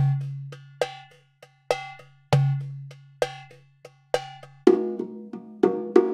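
Percussion music in a bongo-led Cuban style: a loose rhythm of sharp, ringing strikes, about two a second, over a low held note that sounds again a little after two seconds in. About three-quarters of the way through, a busier pattern of lower pitched drum hits takes over.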